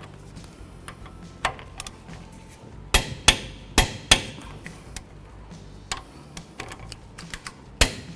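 Click-type torque wrench giving sharp metallic clicks as it breaks over at its set torque of 91 foot-pounds on the 17 mm mounting bolts. The bolts are being re-checked and are already at torque. There are two clicks about three seconds in, two more about a second later, and another group near the end, with fainter ticks between.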